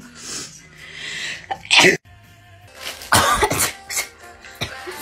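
A woman sneezing, set off by a COVID-19 nasal swab up the nose. One sneeze comes just before the two-second mark and breaks off suddenly, and a louder sneeze follows about a second later, with short breaths between them.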